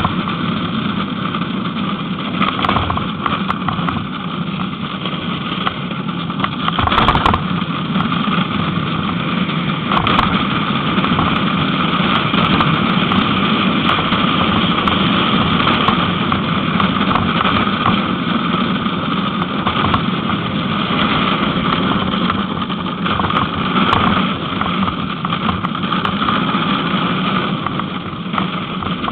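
Soapbox cart rolling downhill at speed: a steady rumble and rattle of its wheels and body on the asphalt, with a few sharp knocks from bumps in the road.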